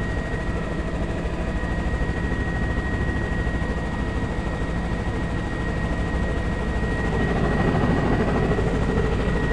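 Helicopter in flight, heard from inside the cabin: a steady engine and rotor drone with a fast, even chop, and a thin steady high whine over it. It grows slightly louder about two-thirds of the way through.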